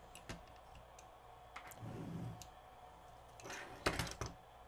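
Small plastic and metal clicks of a cassette deck's tape transport mechanism being handled and prodded with a small pick, a few scattered early on and a louder quick cluster of clicks just under four seconds in.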